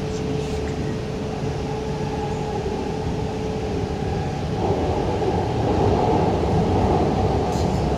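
Putrajaya Line MRT train running, heard from inside the car: a steady rumble with a held humming tone, which gives way about halfway through to a louder, wider rumble and whine.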